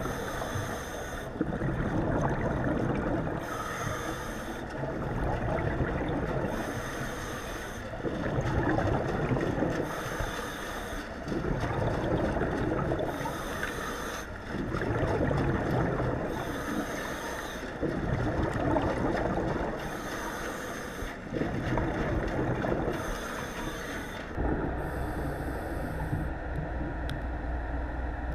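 A diver breathing underwater through a regulator: a hiss on each breath alternating with a rumbling gush of exhaled bubbles, in an even rhythm of about one breath every two seconds. Near the end the breathing stops and a steady low hum takes over.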